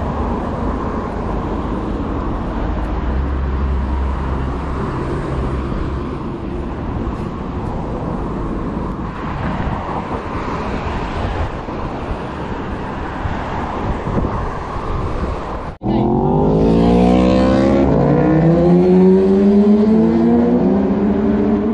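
Vehicle on the move: a steady rumble of engine and road noise. After a brief dropout about 16 seconds in, an engine accelerates with its pitch rising, drops back at a gear change about two seconds later, and rises again.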